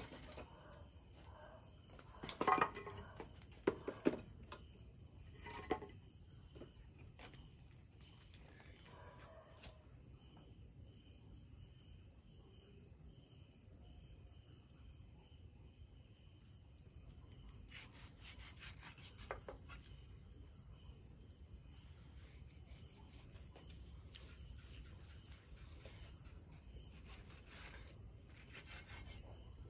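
Night insects, crickets among them, chirring steadily in a high, pulsing trill. A few sharp knocks and clatters of things being handled stand out about two to four seconds in, with fainter ones later.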